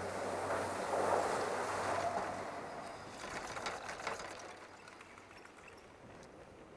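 High-speed quad chairlift's terminal machinery humming and rushing as the chair leaves the station, then a quick run of clicks and clacks from the chair and haul rope about three to four seconds in, the sound fading as the chair rides out over the slope.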